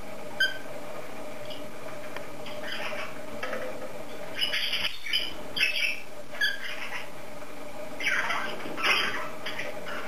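Cockatiel giving short chirps and squawky calls at irregular intervals, the loudest pair near the end, over a faint steady hum.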